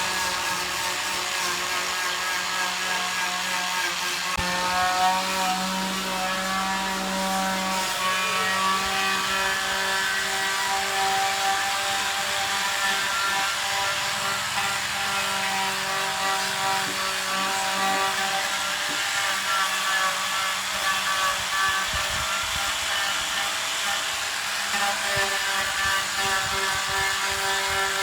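A power tool running steadily, its pitch shifting a few times.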